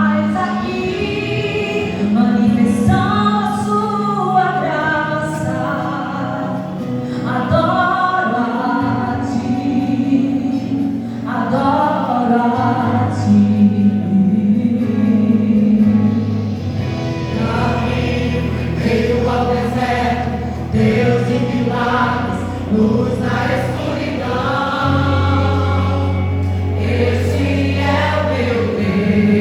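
Vocal group singing a gospel song in harmony over a sustained low instrumental accompaniment.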